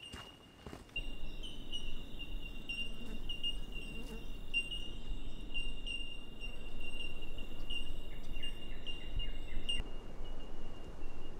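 Bushland ambience: a steady high insect drone with scattered small bird chirps over it and a low rumble beneath. The chirping layer stops suddenly near the end, leaving the insect drone.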